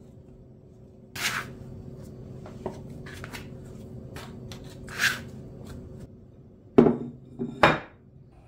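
Dough being worked by hand on a wooden table, with a plastic scraper and hands giving a few short scraping and rubbing noises. Near the end come two sharp knocks as a glass bowl is set down upside down over the dough on the wooden table.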